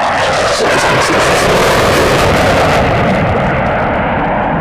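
Loud jet roar from a Boeing EA-18G Growler's twin General Electric F414 turbofans on a fast pass. Its hissing top end drops away after about three seconds as the jet pulls up and climbs away.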